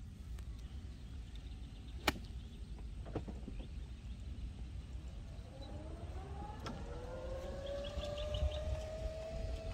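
A motor whine with a few overtones rises in pitch about five and a half seconds in and then holds steady, over a low steady rumble. Two sharp clicks come about two and three seconds in.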